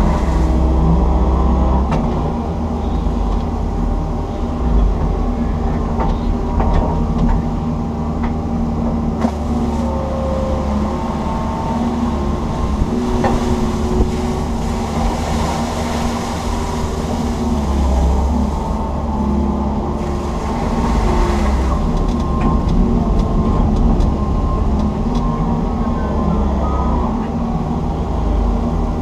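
Komatsu PC160 excavator's diesel engine and hydraulics running steadily under load as heard from inside the cab: a deep drone with a hum that shifts in pitch as the boom and bucket move, and a few short knocks.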